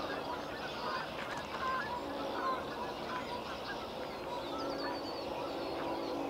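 Birds chirping and calling, with lower, longer steady calls underneath from about two seconds in.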